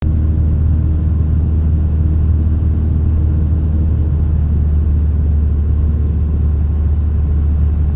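Cessna 172's engine and propeller droning steadily in flight, a constant low hum with no change in pitch.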